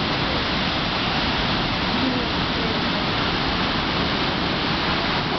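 Snoqualmie Falls, a tall waterfall, pouring into its plunge pool: a steady, even rush of falling water and spray.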